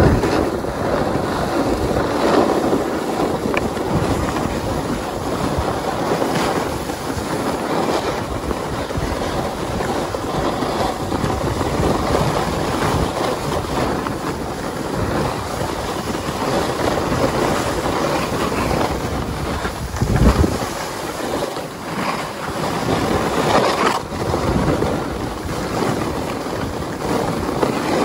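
Snowboard sliding and carving over packed snow, a continuous scraping hiss that swells and eases with the turns, mixed with wind buffeting the microphone.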